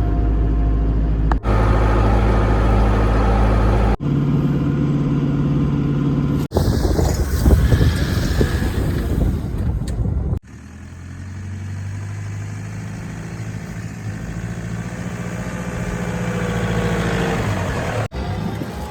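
Car driving: engine hum and road noise in a series of short clips cut abruptly one after another. The last and longest clip swells slowly louder.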